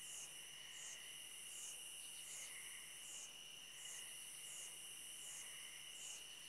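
Faint chorus of night insects: a steady high-pitched trill with a regular pulsing chirp repeating over it.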